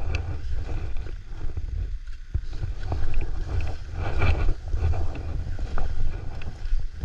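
Skis running and scraping over snow with heavy wind rumble on an action camera's microphone. The scraping comes in uneven surges, the strongest about four seconds in.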